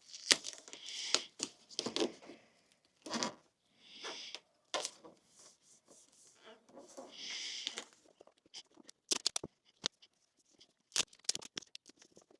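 Duct tape being pulled off the roll and torn, about five short stretches, followed by a scatter of light clicks and taps.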